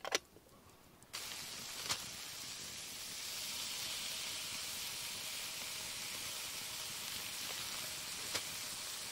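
Bacon strips sizzling in a hot frying pan over a campfire: a steady frying hiss that starts suddenly about a second in and keeps going, after a sharp knock at the very start.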